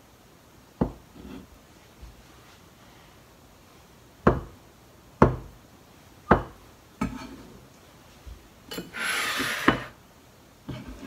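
Kitchen knife cutting down through soft silken tofu and knocking onto a plastic cutting board, about five sharp knocks spaced a second or so apart. A scrape lasting about a second comes near the end.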